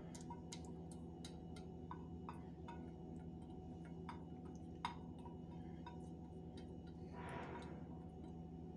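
A silicone spatula scraping yogurt mixture out of a stainless steel bowl into a plastic container: scattered light clicks and taps of the spatula and bowl rim, the sharpest just before five seconds in, and a short scrape near the end, over a steady low hum.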